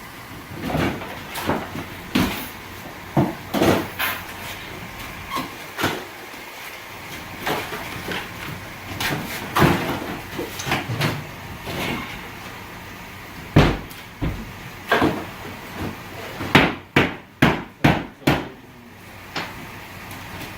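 Irregular knocks and bangs of cabinetry being demolished, spaced strikes with a quick run of about six in a row near the end.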